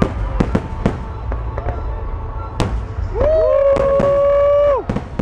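Fireworks show: aerial shells bursting in a series of sharp bangs and crackles. From about three seconds in, a long held pitched tone rises over them for under two seconds.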